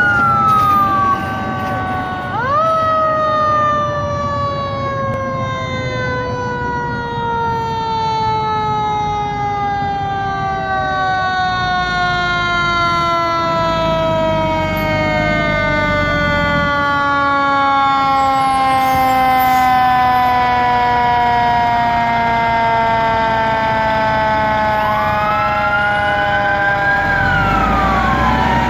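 Fire engine sirens approaching. One wail winds up sharply about two and a half seconds in, then falls slowly in pitch for most of the time, while a second siren's tones glide across it. A heavy truck engine's low rumble grows near the end as the lead engine draws close.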